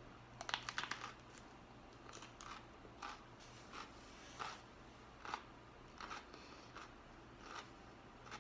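Biting into a raw peach habanero pepper, then chewing it: a quick run of crisp crunches about half a second in, followed by soft, regular chewing crunches roughly every three-quarters of a second.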